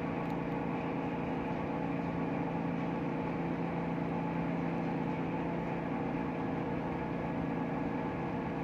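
Steady drone of running machinery with several constant hum tones, unchanging throughout.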